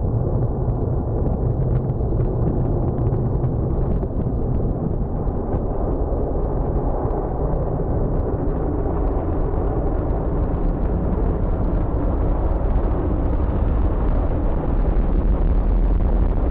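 Military jet aircraft engine roar at takeoff: a steady, deep rumble with crackle that grows slightly louder near the end.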